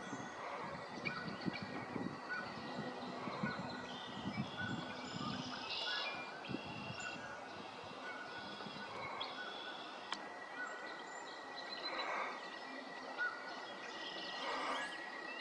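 Outdoor ambience with scattered short, high bird chirps and calls throughout, a few louder calls about three-quarters of the way in and near the end. A faint steady high whine runs under it, dropping out for a few seconds in the middle.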